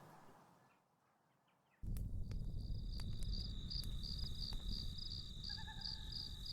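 Night-time forest ambience that starts abruptly just under two seconds in, after a brief silence: a cricket holding a steady high trill, with pulsing chirps at about three or four a second, over a low rumble, with a few faint clicks.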